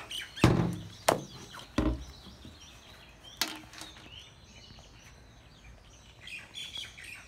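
Small birds chirping, with a few sharp thumps and knocks in the first two seconds and another knock about three and a half seconds in. The chirping picks up again near the end.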